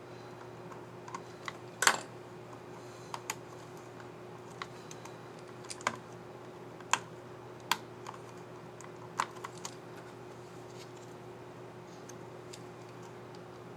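Sharp plastic clicks from a Lenovo IdeaPad 330S laptop keyboard key as its keycap is pressed down on its scissor mechanism. About a dozen irregular clicks come in the first ten seconds, the loudest about two seconds in, then only a steady faint hum remains.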